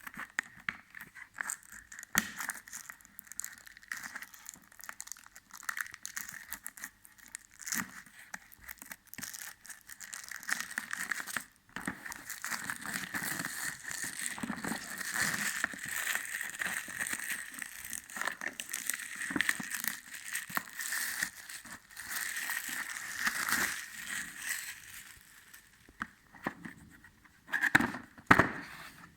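Router packaging being handled and unwrapped: continuous crinkling and rustling with many small clicks, busiest in the middle, and a few sharper knocks near the end.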